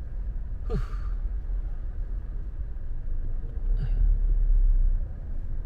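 Car cabin rumble from engine and tyres while driving, swelling louder about four seconds in.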